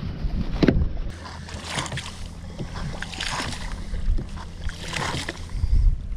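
Bilge pump being worked to draw water out of a flooded kayak hull, with a swishing, gurgling stroke about every second and a half. Wind rumbles on the microphone underneath.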